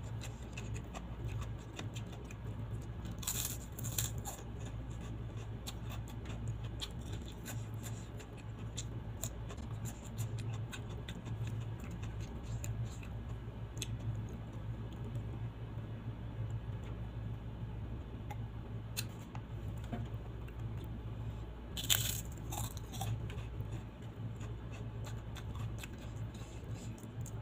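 Close-miked eating with the fingers: chewing and small mouth clicks throughout, with louder crunches about three and a half seconds in and again about twenty-two seconds in, over a steady low hum.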